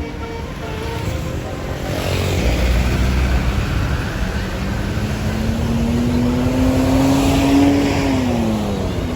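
Tour bus diesel engine pulling away, its note rising steadily for several seconds and then falling near the end.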